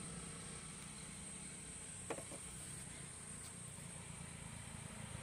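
Quiet outdoor ambience: a steady high drone of insects over a low, even rumble, with one faint click about two seconds in.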